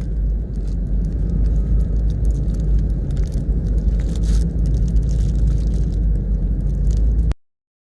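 Steady low road rumble inside a moving car's cabin, with scattered small clicks and crunches of eating. It cuts off suddenly near the end.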